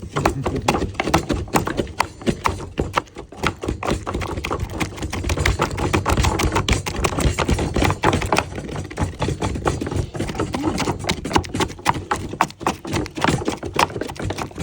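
Quick, irregular clicking and knocking, many strikes a second, from elephant vitamin-ball ingredients (tamarind, banana, salt) being mashed and mixed by hand.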